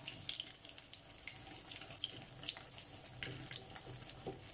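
Besan-battered fish piece deep-frying in hot oil in a black wok: a steady sizzle with scattered small crackles and pops.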